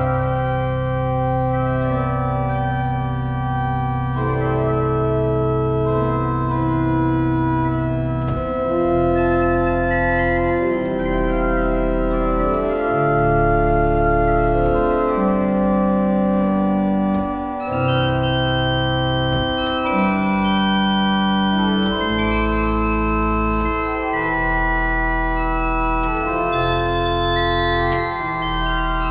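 Metzler pipe organ playing a slow melody over sustained chords, with long held bass notes that change every few seconds.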